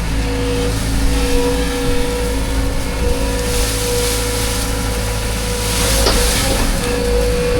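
Farm machine engine running steadily under load, with a steady whine above its low rumble and a brief knock about six seconds in.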